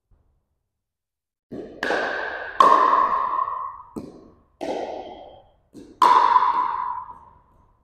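A pickleball rally: a hollow plastic ball hit back and forth with paddles, six or seven sharp pops in quick, uneven succession, each ringing on in the echo of a large gymnasium.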